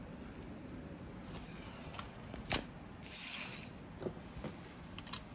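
Faint handling noises: a few light clicks and a brief rustle about three seconds in.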